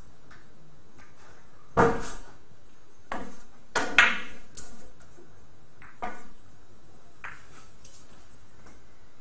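Billiard balls clacking during a shot: a series of about six sharp clicks over some four seconds as the cue ball and object balls strike each other and the cushions, the loudest about two and four seconds in, then a faint last tap.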